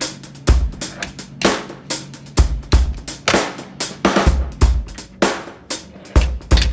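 Background music with a heavy drum beat: kick drum, snare and cymbals in a steady rhythm over a held bass note.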